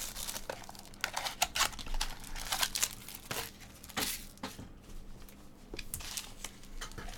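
Foil trading-card pack wrappers crinkling and tearing as they are handled and opened, in irregular crackles and rustles.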